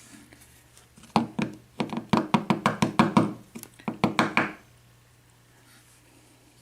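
A quick run of small clicks and knocks, about four a second, as the parts of a disassembled brass padlock are handled on a hard surface. They start about a second in and stop a little past the middle.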